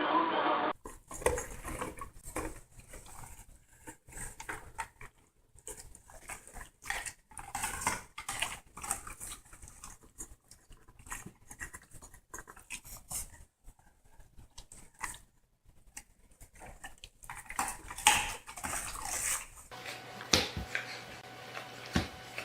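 A German Shepherd dog making short, irregular noises close by, mixed with many light taps and clicks, with a few louder knocks near the end.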